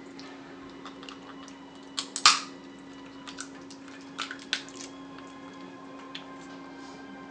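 Snow crab shells cracking and snapping as the legs are broken and picked apart by hand, with wet eating clicks close to the microphone; the loudest crack comes about two seconds in, with a few smaller snaps around four to five seconds. A steady low hum runs underneath.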